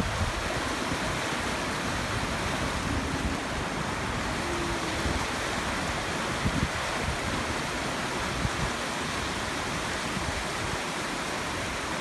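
Shallow stream rushing and splashing over stones, a steady even rush of water.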